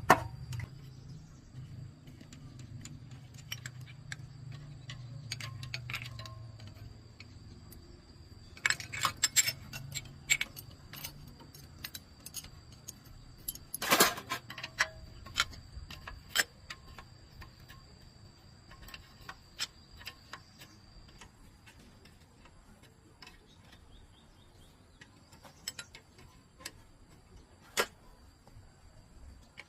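Scattered light metallic clicks and clinks of hand tools and small metal parts being handled. There is a quick run of taps about nine seconds in and a single sharper knock about fourteen seconds in, with a low hum fading out over the first several seconds.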